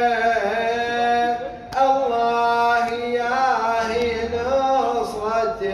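A man's voice chanting a Shia lament (latmiya) without instruments, holding long wavering notes, with a short breath about one and a half seconds in.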